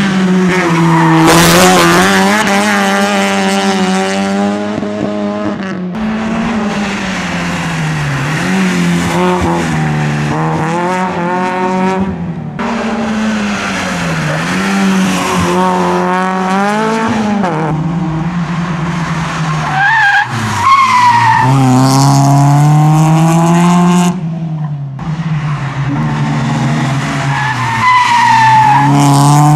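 Rally cars' engines revving hard as they pass at speed, the pitch climbing and dropping again with each gear change, with short bursts of tyre squeal. The sound breaks off abruptly a few times as one car's pass gives way to the next.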